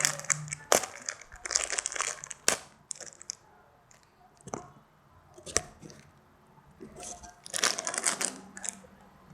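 Crinkling of a thin plastic bag as a squishy is pulled out of its packaging, in bursts during the first few seconds and again near the end, with a few sharp crackles in the quieter stretch between.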